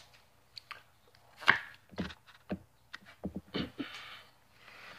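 Hands handling Pokémon trading cards and an opened booster pack wrapper: a series of light taps and clicks, the sharpest about one and a half seconds in, with soft rustling of cards and wrapper near the end.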